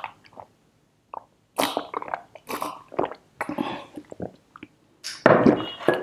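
Close-miked gulping and swallowing of water, with quick breaths between, then a loud breathy exhale near the end.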